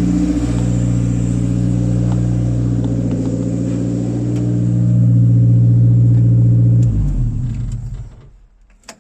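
Car engine running steadily, a little louder about five seconds in, then switched off about seven seconds in and spinning down to a stop.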